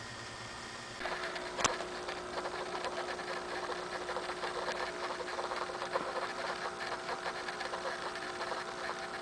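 Aquarium pump running: a steady hum with a fast rattling buzz that gets louder about a second in. A single sharp tap comes shortly after.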